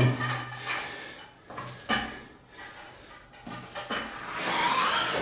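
A metal end bar of a camp stretcher knocking and clinking against the frame as it is handled and fitted: a few separate sharp knocks, then a denser scraping and rustling of the bar against the canvas near the end.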